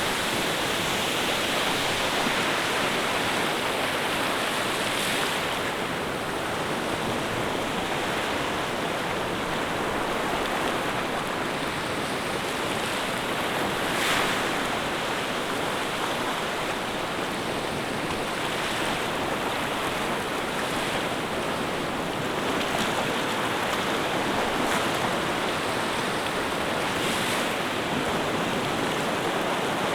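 Steady rush of moving water, an even noise that holds at one level, with a brief louder moment about halfway through.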